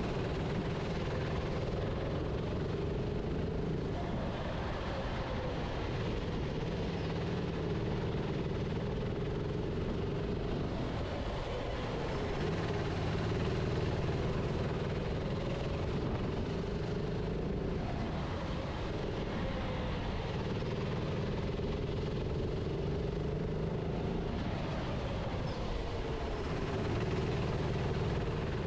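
Onboard sound of a racing kart's engine running at speed, its pitch dipping as the driver lifts for corners and climbing again on the throttle, over a steady rushing noise.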